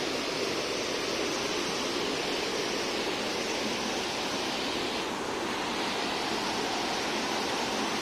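Steady rushing of a waterfall, white water cascading over rocks.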